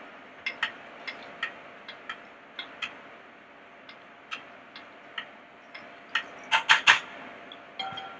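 Arancini frying in a pot of hot oil: scattered sharp pops and crackles over a faint sizzle, with a quick run of three or four louder clicks about six and a half seconds in.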